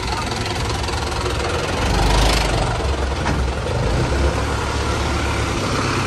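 Light truck's diesel engine running at low revs as the truck moves off slowly, a steady low rumble that swells slightly about two seconds in.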